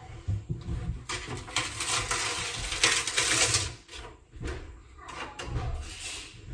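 Old wallpaper being torn away from a plaster wall: a long, noisy ripping from about one second in to nearly four seconds, then a few shorter rips and light knocks.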